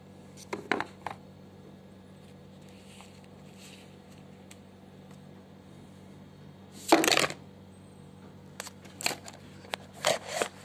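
Handling noises: short rustles and clicks of paper, a pen and a phone box being moved by hand, with one louder rustle about seven seconds in and a cluster of sharp clicks near the end, over a steady low hum.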